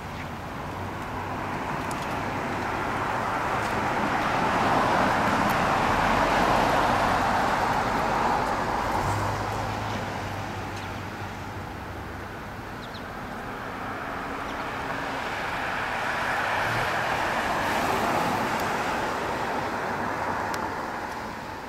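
Road traffic: two vehicles passing one after the other, their tyre and engine noise swelling and fading, the first loudest about six seconds in and the second about eighteen seconds in.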